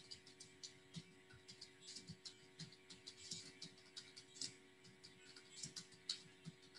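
Faint typing on a computer keyboard: irregular key clicks several times a second, over a low steady hum.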